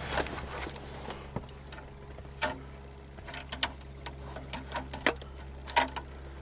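Irregular sharp plastic clicks and taps as hands work the plastic radio dash kit in the dash opening, about ten in all with the loudest near the end, over a steady low hum.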